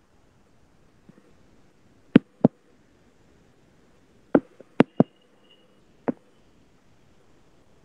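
A few sharp clicks over a quiet background: two about two seconds in, a quick run of four a little after four seconds, and one more about six seconds in.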